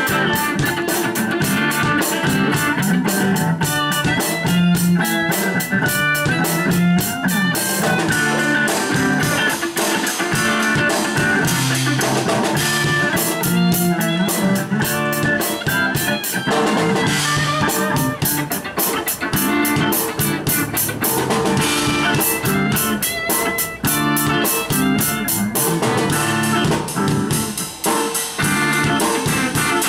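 Instrumental music with guitar over a drum kit keeping a steady, fast beat.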